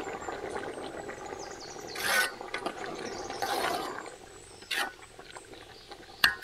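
Large aluminium pot of vegetable sambar boiling hard, a steady bubbling with louder gurgling bursts that eases after about four seconds. A ladle stirs the vegetables, and there is a sharp knock near the end.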